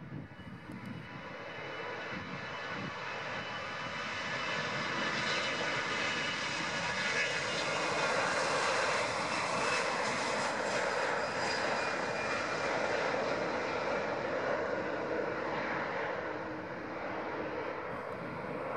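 Airbus A321-211's CFM56 turbofan engines at takeoff thrust as the jet accelerates down the runway, with a high whine over a rushing jet noise. It grows louder to a peak about halfway through as the aircraft passes, then eases off as it moves away.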